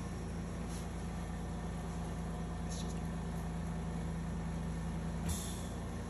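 Steady hum of room equipment with a constant low tone, and a few brief rustles of cloth surgical drapes being handled, the clearest about five seconds in.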